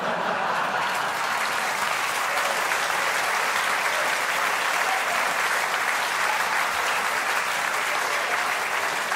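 Audience applauding: a steady round of clapping from a full hall.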